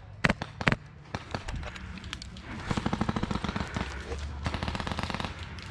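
Airsoft guns firing: a few single shots in the first second, then a long run of rapid full-auto fire lasting about three seconds.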